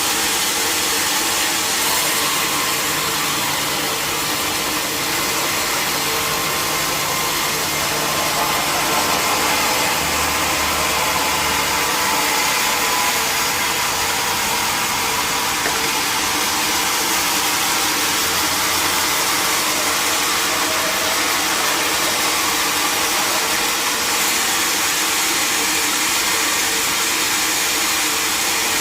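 Sawmill machinery running steadily: a constant mechanical whir with a steady hum underneath, even in level throughout.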